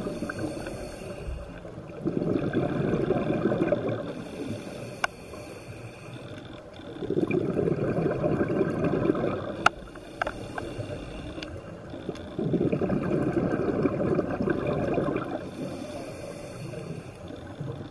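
Scuba diver's regulator breathing underwater: three long rushes of exhaled bubbles about five seconds apart, with a fainter hiss of inhalation between them. A few sharp clicks stand out in the middle.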